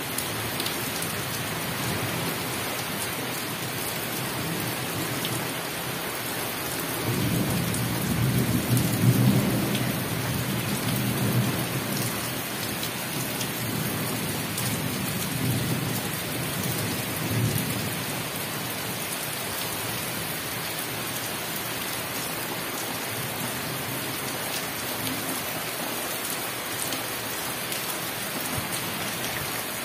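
Steady rain falling on open ground and trees. About seven seconds in, a long roll of thunder builds, is loudest around nine seconds, and rumbles away over the next several seconds.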